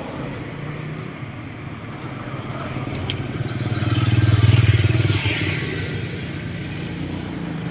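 Passing street traffic: a car goes by, then a motorcycle passes close, its engine growing louder to a peak about halfway through and then fading.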